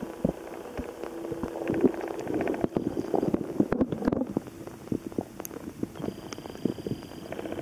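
Underwater noise heard through a waterproof compact camera's microphone just below the surface: a steady hum with a fast, even pulsing that comes and goes, which the uploader suspects is a distant small motorboat. Irregular knocks and clicks run through it.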